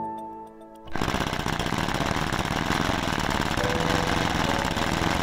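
3D-printed two-cylinder V diaphragm air engine starting about a second in. It then runs steadily on roughly 60 psi compressed air with a rapid, even clatter, loaded by a Prony brake for a power test.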